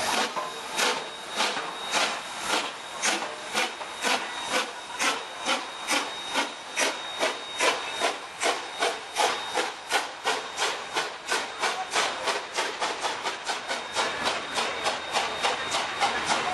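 ČSD class 475.1 "Šlechtična" two-cylinder steam locomotive working away with its train, its exhaust beating in sharp, even chuffs about three a second, quickening slightly, over a hiss of steam.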